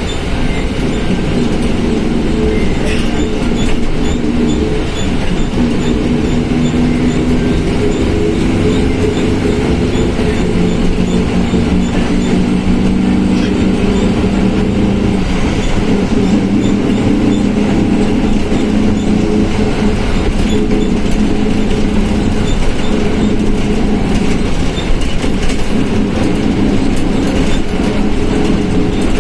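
Volkswagen Volksbus 17.230 OD bus under way: steady diesel engine drone with the transmission growling, the pitch shifting up and down as it drives.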